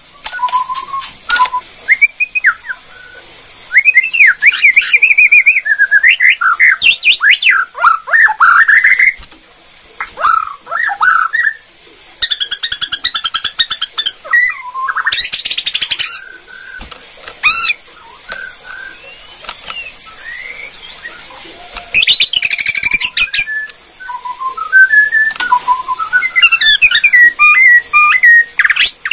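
White-rumped shama (Bornean murai batu) singing: loud, varied whistled phrases that slide up and down, broken several times by fast, dry rattling trills, the 'kretekan' of this song.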